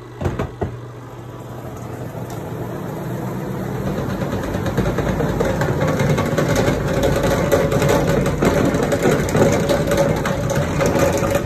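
A couple of knocks, then a FRIFER twin-tub washer and spin dryer running: its motor noise grows louder over the first few seconds, holds at a steady hum, and cuts off suddenly at the end.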